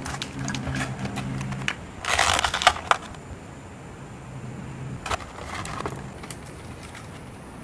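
Clear plastic blister packaging crackling and clicking as it is handled, with a loud burst of crinkling about two seconds in and a smaller one about five seconds in.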